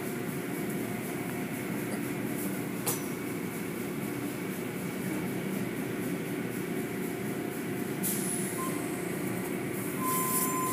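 Automatic tunnel car wash machinery running, heard from inside a car: a steady hum and rush of water spray and cloth brushes. There is a short click about three seconds in, and the hiss brightens near the end.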